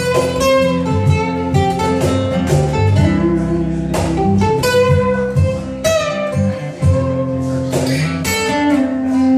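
Several acoustic guitars playing a song together live, strummed chords in a steady rhythm.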